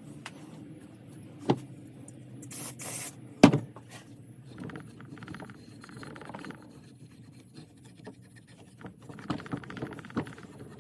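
Workbench handling noises while engine parts are cleaned: scattered scrapes and rubbing, a short hiss a little after two seconds in, and two sharp knocks, the louder about three and a half seconds in.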